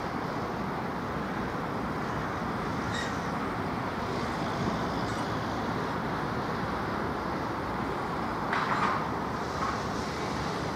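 Steady outdoor rumble of traffic as a red low-floor tram approaches slowly along its track. A short high-pitched sound comes about three seconds in, and a louder brief sound a little before the end.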